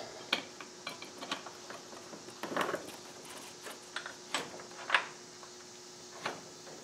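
Light metallic clicking and clinking of a motorcycle drive chain being worked back onto the rear sprocket while the wheel is turned by hand; the sharpest clicks come about four and a half and five seconds in.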